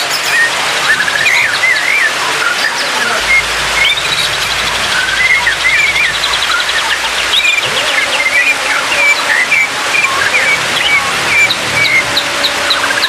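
White-rumped shama singing a varied song of clear whistles, quick rising and falling phrases and rapid trills, over a steady background hiss.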